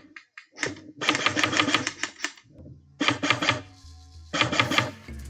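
Airsoft electric guns (AEGs) firing rapid full-auto bursts: four bursts of fast, evenly spaced shots, the longest lasting about a second.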